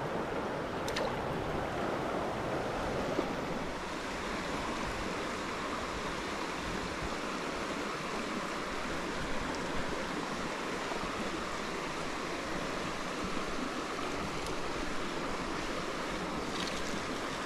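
Steady wash of a small stream's water running over rocks, with a few faint clicks.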